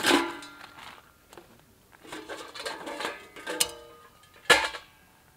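Nested stainless-steel parts of a Solo Stove Campfire wood stove being unpacked and pulled apart: a ringing metal clank at the start, clinks and scrapes of steel on steel with short ringing tones in the middle, and a sharp clank near the end.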